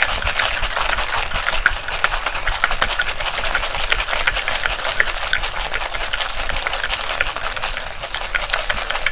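Stainless steel cocktail shaker being shaken hard by hand: a fast, steady rattle of its contents against the metal tin.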